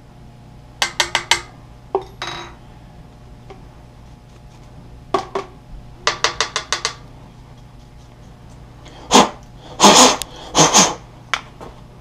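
Small steel hand tools and workpiece clicking and clinking as they are handled and set down on a milling machine's table: quick runs of light metal ticks, then a few louder knocks about nine to eleven seconds in.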